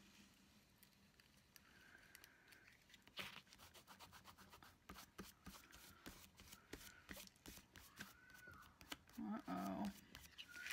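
Faint clicks, taps and rubbing from hands working a paper planner page with a correction tape dispenser. Near the end comes a louder stretch of distant screaming from another room.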